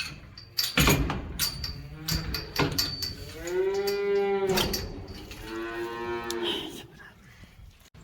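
Several sharp knocks in the first three seconds, the loudest about a second in, then a cow moos twice, each a long call, the first rising and falling in pitch.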